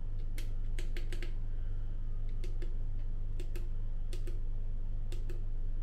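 Air conditioner running with a steady low hum, over light clicks, often in pairs and about a dozen in all, of buttons being pressed to set the fan.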